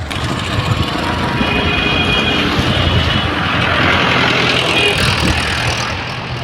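Diesel engines of the tractor and backhoes running under load while towing, with a loud steady rumble and road noise, and a brief high whine about two seconds in.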